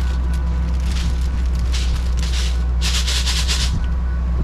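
Wrapping paper being torn and crinkled as a gift is opened, in irregular rustles with the loudest tearing about three seconds in, over a steady low hum.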